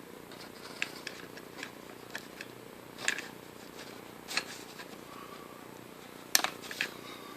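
Scattered light metallic clicks and taps of small tools against the lathe's gear case as the snapped-off Helicoil tangs are picked out of the freshly tapped holes, with the loudest tap about six and a half seconds in.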